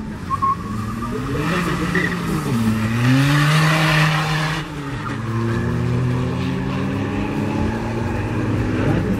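A tuned Seat Ibiza's 1.9 TDI four-cylinder turbodiesel launching hard in a drag race and accelerating flat out. Its pitch climbs, drops at a gear change about two and a half seconds in, then climbs again. A harsh hiss over the engine is loudest from about three to four and a half seconds in, where it cuts off sharply, and the engine then keeps pulling, fading as the car runs away down the strip.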